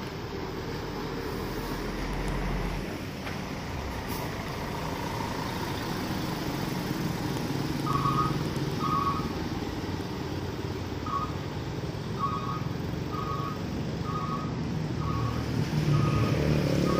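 Agra Mas Mercedes-Benz coach running and pulling away on a wet road, its engine a steady low rumble under tyre hiss. From about halfway through, a two-tone beep repeats roughly once a second. Near the end a motorcycle passing close makes the sound louder.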